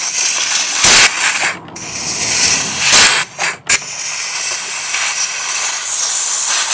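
Compressed air hissing, in loud spurts about one and three seconds in, then a steady hiss.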